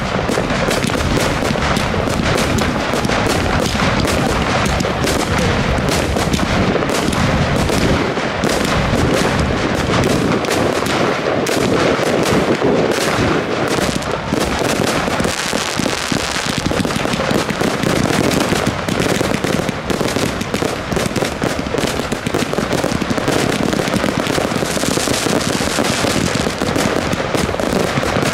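Fireworks display firing a dense, continuous barrage of rapid bangs and crackles from shells and multi-shot cakes. A hissing crackle swells twice, about halfway and near the end.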